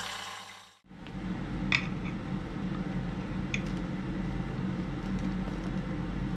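Handled steel parts clicking lightly twice as a steel rod and sleeve are fitted into a square-bar steel frame, over a steady low workshop hum. At the start a belt sander's rough sanding noise fades out.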